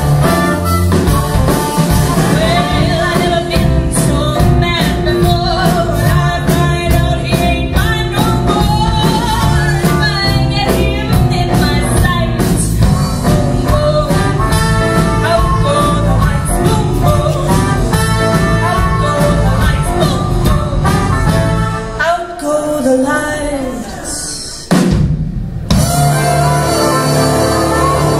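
Live band with saxophone, trumpets, keyboard and drum kit playing loudly, a woman singing. About 22 seconds in the band thins out, stops dead for a moment and then comes back in together.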